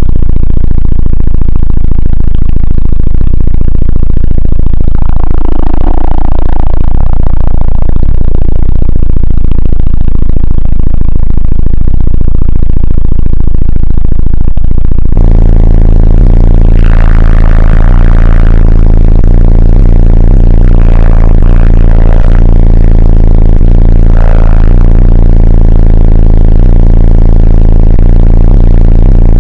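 Competition car audio subwoofers playing extremely loud, steady bass, distorted and overloading the recording. The bass is strong enough to crack the car's windshield. The sound changes about halfway through.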